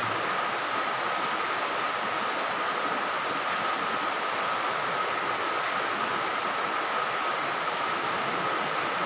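Steady hiss with a thin steady whine running through it, unchanging throughout; no separate strokes or knocks stand out.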